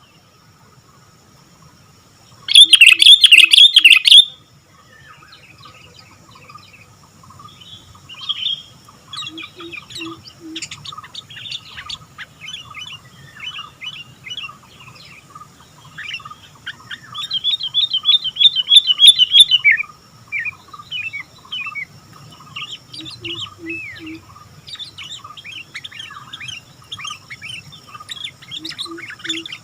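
Sooty-headed bulbul (kutilang) singing in full voice: a loud burst of calls a few seconds in, then a long string of short chirps with a loud, fast run of notes about two-thirds of the way through.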